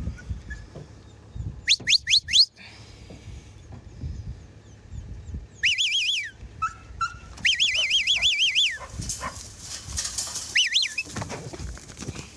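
Stockdog handler's whistle commands to a working border collie: four quick rising whistles, then two warbling trills and a short rising-and-falling whistle. In the later part there is scuffling of hooves and paws in loose dirt as the cow charges the dog.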